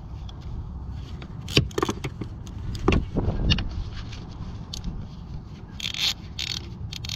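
Ratchet wrench with an extension tightening the 10 mm nut on a car battery's negative terminal clamp: scattered metal clicks and scrapes, then a quick run of ratchet clicking about six seconds in.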